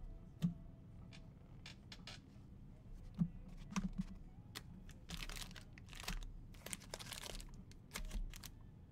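Trading card packs being handled and opened: scattered taps and clicks of cards and packs on a table, with two short crinkling, tearing bursts of pack wrappers being ripped open about five and seven seconds in.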